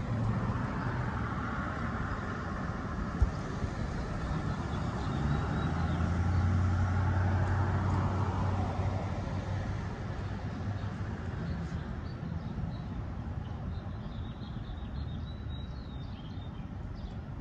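Street traffic ambience: a car passes through the intersection, its engine hum swelling to a peak around the middle and then fading. A single sharp tap comes about three seconds in, and faint bird chirps are heard near the end.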